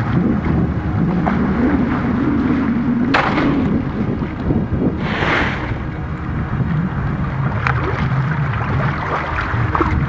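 Water sloshing and splashing as a person wades through a shallow, open brook, with wind buffeting the microphone. Two brief louder bursts come about three and five seconds in.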